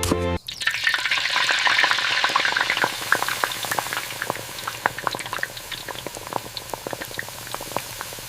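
Food frying in hot oil in a pan: a steady sizzle with many sharp crackles, easing off after about three seconds.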